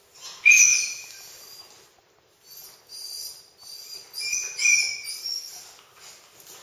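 High-pitched animal squeals: a loud one about half a second in, then a run of several short squeals with falling pitch from about two and a half seconds in.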